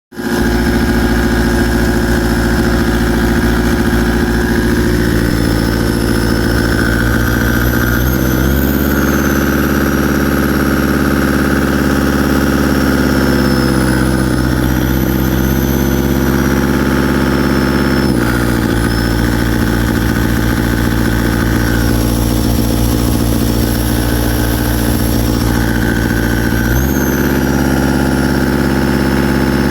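Caterpillar 277B loader's 3044C-T four-cylinder turbo diesel running, its note stepping up and down between engine speeds several times as the throttle is moved. The engine misfires and puffs at mid throttle while running well at idle and full throttle, which the owner suspects means worn-out injectors, or possibly the injection pump.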